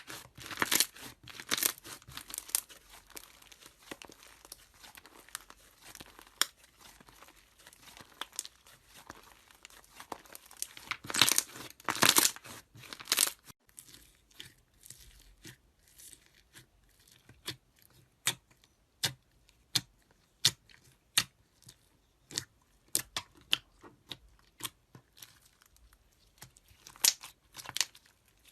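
Slime being worked by hand, crackling and popping with many sharp clicks. The clicks come thick and loud at the start and again around eleven to thirteen seconds in, then thin out to scattered single pops.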